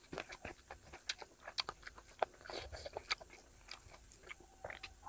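Close-miked eating sounds: chewing a mouthful of rice and curry, with irregular wet clicks and smacks, along with fingers squishing rice and curry together on the plate.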